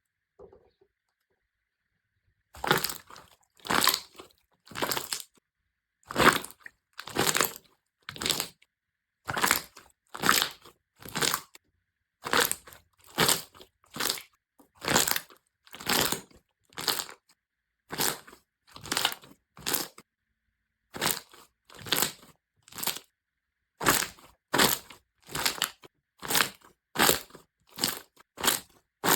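Slime being pressed and worked by hand, making short bursts of sound about once a second, starting a couple of seconds in.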